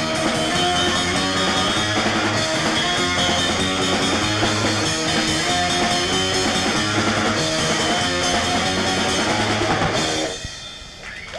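Live rock band, drum kit and guitars, playing the last bars of a song, then stopping about ten seconds in.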